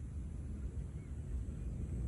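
Low, steady rumble of wind buffeting the microphone, with no distinct bangs.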